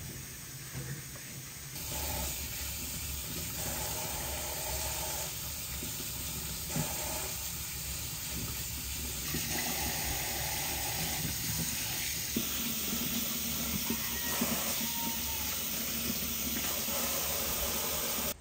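Steady hiss of running water, changing abruptly in character a few times.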